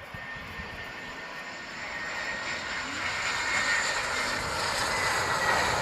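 Airbus A320-214 airliner's CFM56 jet engines on landing, a rushing jet noise with a thin high whine that grows steadily louder from about two seconds in as the plane comes close.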